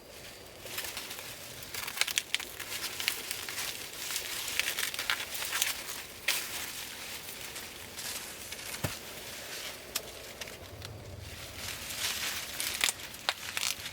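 Plant leaves rustling and crackling, crumpled and handled, with many sharp snaps and clicks and a brief lull a little before the end.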